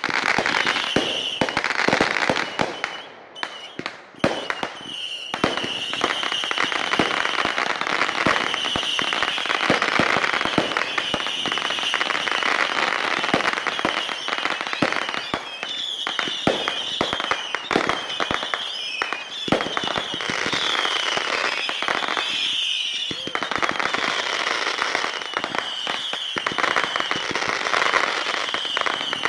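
Fireworks going off in a dense barrage of rapid pops, bangs and crackling, with a high wavering whistle running through much of it. The barrage eases briefly about three seconds in.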